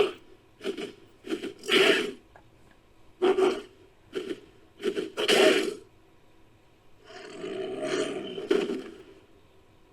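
Creature sound effects for a giant prehistoric baboon: a run of about eight short, harsh grunts and barks, then one longer, rasping call about seven seconds in that lasts some two seconds.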